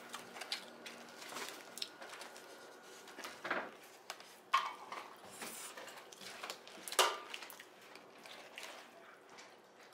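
Scattered light clinks and taps of dishes and utensils, about half a dozen, with quiet gaps between; the loudest comes about seven seconds in.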